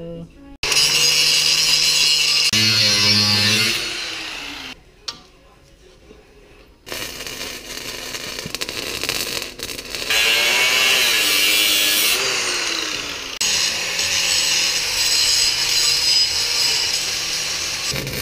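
Electric angle grinder cutting and grinding the steel of a Toyota 8-inch rear axle housing, taking the breather and parking brake cable bracket off the top. It runs in several passes: it winds down about three seconds in, goes quieter for a few seconds, then comes back, its pitch dipping and rising under load.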